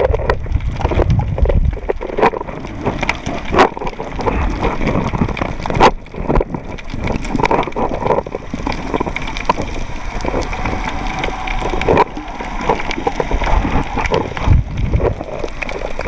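Water noise picked up by a camera filming underwater, a rough uneven wash with scattered sharp clicks and knocks and occasional low rumbles.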